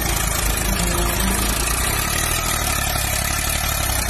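Tractor diesel engine running steadily under heavy load, hauling a trailer loaded with earth up a slope.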